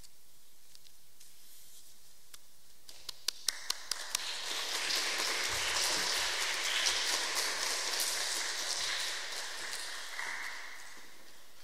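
Audience applause: a few single claps about three seconds in, then steady clapping for about seven seconds that fades out near the end.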